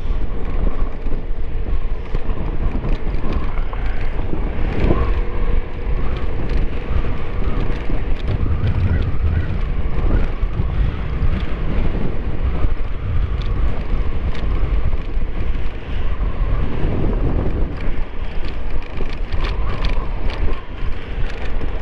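Motor scooter on the move: a steady, loud wind rumble on the microphone over engine and road noise.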